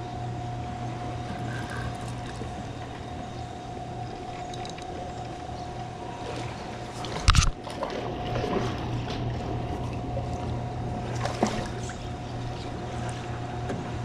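Steady rush of spillway water around a kayak, over a constant low hum, while a small channel catfish is reeled in. About seven seconds in there is one sudden loud splash and knock as the fish is lifted to the kayak.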